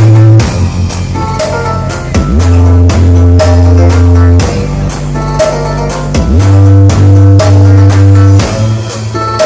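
Very loud dance music blasting from a massive stacked 'horeg' carnival sound system, the Kiron 97 rig. Deep bass notes are held about two seconds each and shift in pitch, under a steady beat and a melody.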